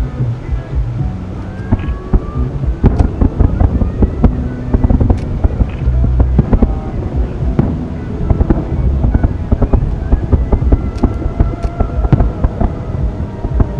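Distant aerial fireworks bursting in quick succession: a dense run of bangs and crackles over a low rumble.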